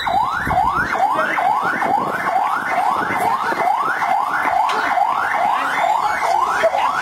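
A siren sounding in quick rising sweeps, about three a second, each climbing in pitch and then dropping back sharply.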